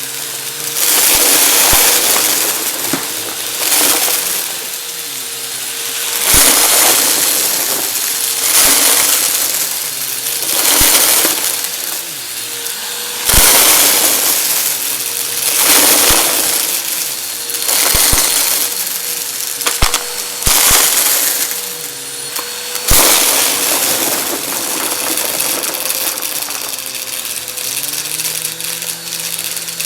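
Vacuum cleaner with an overfilled dust bin sucking up crunchy confetti in repeated passes: a loud rush of crackling crunch about every two seconds over the steady hum of the motor. Near the end the passes stop and only the motor runs, its pitch wavering.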